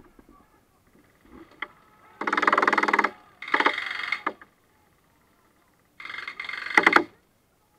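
Airsoft rifle firing three rapid full-auto bursts of fast, evenly spaced clicks, the last ending with a couple of sharp cracks.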